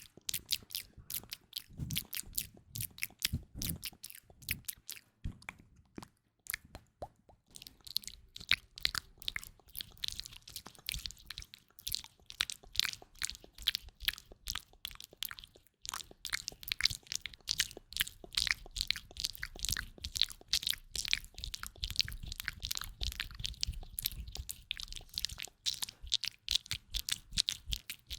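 Close-miked ASMR tapping: rapid, crisp clicks and taps in irregular flurries, with a few short pauses.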